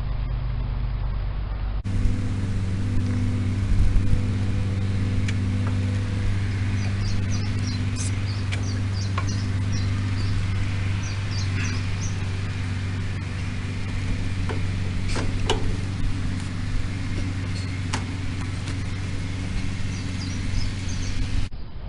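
An engine running steadily at idle, a low even hum, with birds chirping now and then and a few sharp clicks. The hum changes abruptly about two seconds in.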